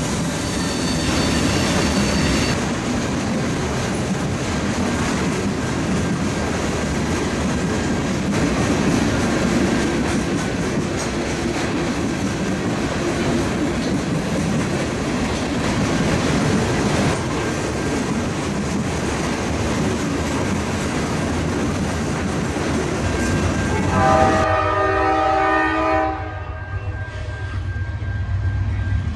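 Freight train cars rolling past, a steady rumble and clatter of wheels on the rails. Near the end a locomotive horn sounds one chord for a little under two seconds, followed by a low rumble.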